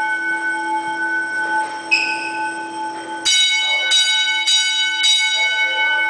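Autocall 10-inch single-stroke fire alarm bell sounding a coded signal: after the ringing of earlier strokes dies away, a lone fainter stroke of a different pitch comes about two seconds in, then a group of four quick strokes a little over half a second apart. This is the 4-4-4-4 march-time code struck by the fire alarm control panel.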